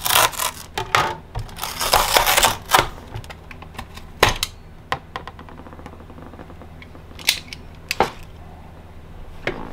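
A stiff yellow sheet rustling and crackling as it is pulled and folded away from a lithium battery's pouch-cell pack, then a few separate sharp clicks and taps as a small knife works at the tape.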